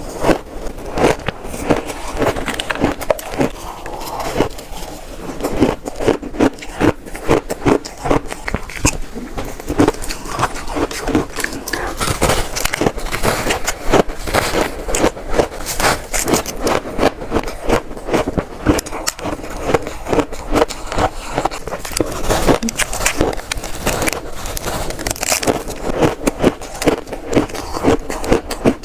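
Shaved ice being bitten and crunched close to the microphone: a dense, unbroken run of sharp crackling crunches.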